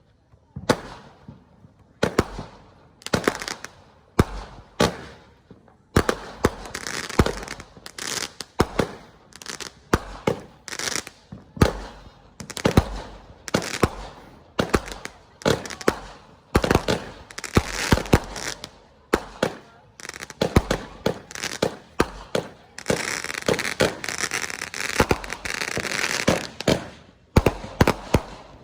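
Consumer fireworks finale: a fast run of booming shell bursts and bangs, sparse at first and then coming thick and fast, with a dense stretch of crackling about three-quarters of the way through, stopping just before the end.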